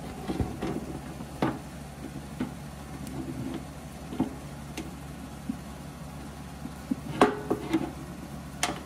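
Scattered small clicks and knocks of a metal lever-type spindle lock and its bolt being handled and fitted against a lathe headstock, the sharpest knock about seven seconds in. A steady low hum lies underneath.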